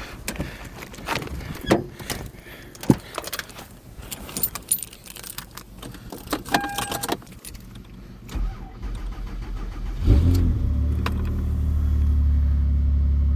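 Keys jangling and clicking as they are handled, then about ten seconds in the Toyota Avalon's newly replaced engine cranks briefly, catches and settles into a steady idle.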